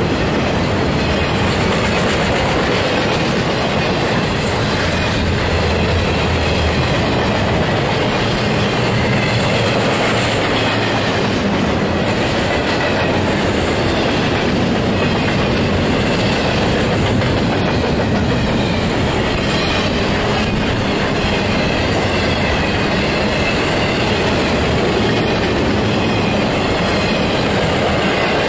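Intermodal freight train cars, trailers and double-stack containers, rolling past close by: a loud, steady run of steel wheels on the rails with no pause.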